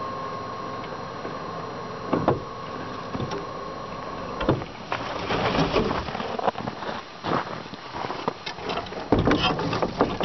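Battery-powered electric winch humming steadily as its cable pulls a 54-inch Yellowstone compaction drag up against the side of a cargo trailer, stopping about four and a half seconds in. Then a run of metal clanks and rattles as the drag's frame is hooked and chained in place.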